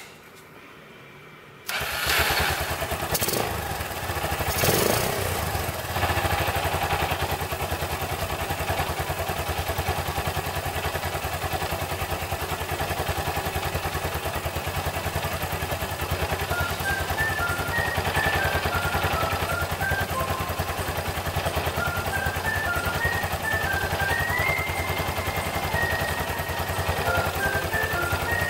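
Honda FTR223's air-cooled 223 cc single-cylinder engine starting about two seconds in, rising a couple of times in the next few seconds, then idling steadily with an even beat. A simple tune of high notes plays faintly over it in the second half.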